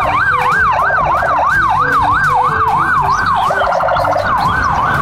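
Police car siren in a fast yelp, its pitch rising and falling about three times a second.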